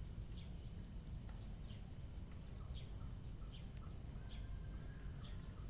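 Outdoor ambience with a bird giving short, falling chirps repeated about every half second, over a steady low rumble.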